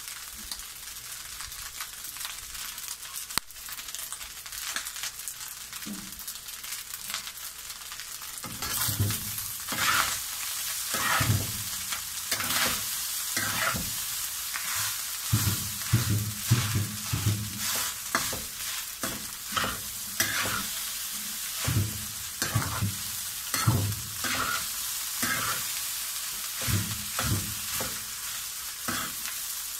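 Crab fried rice sizzling in a hot wok, stirred and scraped with a metal spatula. Through the first third there is mostly a steady sizzle; after that, scraping, tossing strokes come one or two a second.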